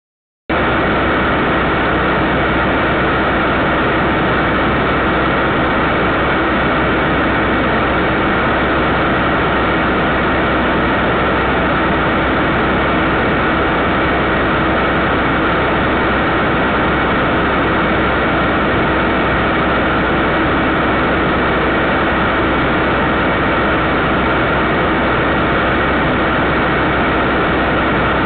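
Steady, unchanging noise with a constant hum from a security camera's audio feed, starting abruptly about half a second in.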